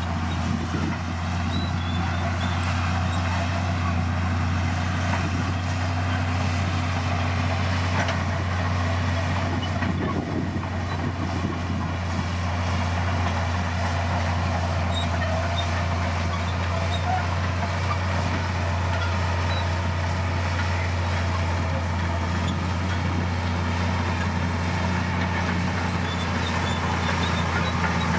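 Komatsu D60P bulldozer's diesel engine running steadily at working revs, with a constant low hum and mechanical clatter over it.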